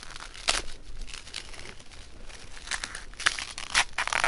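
Packaging around a contact juggling ball crinkling and tearing as it is unwrapped by hand, in scattered crackles: one sharp one about half a second in, then a busy run of them near the end.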